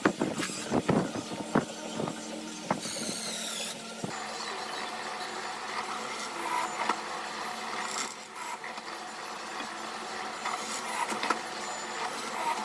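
A cordless drill driving a screw into a wooden frame, with a few sharp knocks. About four seconds in, a benchtop drill press running steadily as its bit bores through an old wooden board.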